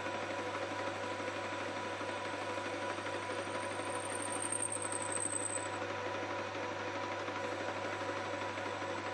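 Metal lathe running steadily as a parting tool cuts into a spinning brass bush blank. A thin high whine comes in about three seconds in, falls slightly in pitch and stops about six seconds in.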